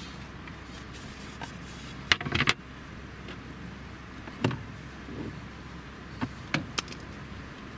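A wooden cutting board set down on a table with a quick cluster of knocks about two seconds in, followed by a single knock and then a few short taps and clicks, over a steady low background hum.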